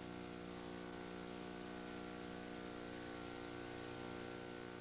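A faint, steady hum of several held tones that does not change.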